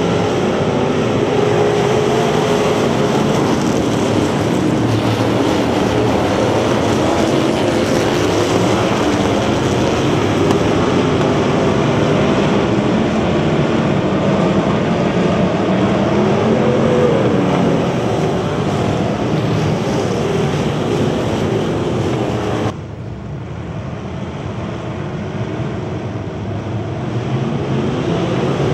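Several Bomber-class stock cars racing at full throttle, their engines running hard together, with the pitch wandering up and down as the cars accelerate and lift through the turns. The sound drops suddenly about 23 seconds in, then builds again.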